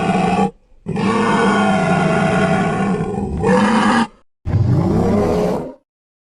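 Sound-designed creature calls for the extinct synapsid Estemmenosuchus. The end of one call is followed by a long, loud call lasting about three seconds that shifts in pitch near its end, then a shorter call whose pitch slides up and down, with brief silences between them.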